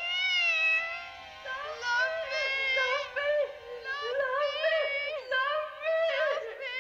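Music: a high, warbling melody that glides up and down in pitch, broken into short phrases.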